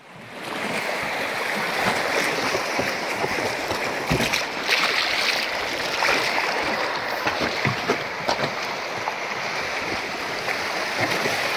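Fast, muddy river water rushing through riffles around an inflatable raft, a steady rush with scattered small splashes against the raft.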